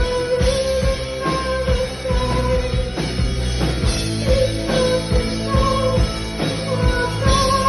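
Live rock band playing: a steady drum beat under bass and long held melody notes.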